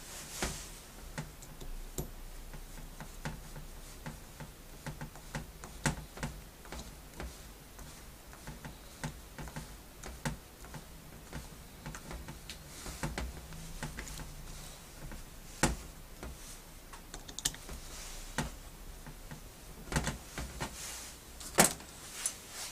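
Irregular light clicks and taps of ball-valve parts being handled and worked on, with a few sharper knocks.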